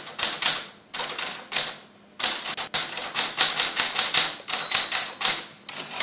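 Keys of a Halda manual portable typewriter being struck: irregular runs of sharp clacks, about three a second, broken by short pauses.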